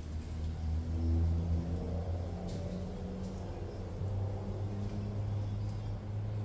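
A low engine running, its pitch drifting up and down, with a few faint clicks.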